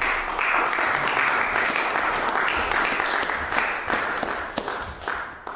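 Audience applauding, a dense patter of many hands clapping that thins out and fades over the last second or so.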